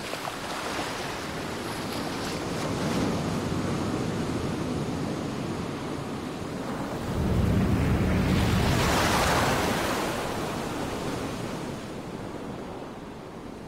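Sea water rushing and splashing as a pod of orcas surfaces, with a louder surge of rushing water about seven seconds in that dies away over the next few seconds.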